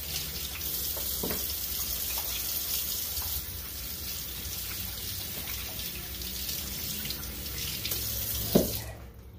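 Faucet running into a sink as a hand is rinsed under it. The water stops near the end, just after a sharp knock.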